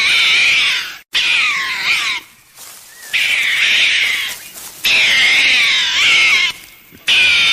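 An animal giving a series of loud, high-pitched cries, each about a second long, with sliding pitch and short pauses between them.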